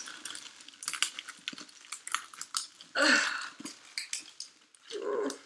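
Crinkling and crackling of plastic packaging being picked at and torn open by hand, in a run of short crackles and rustles.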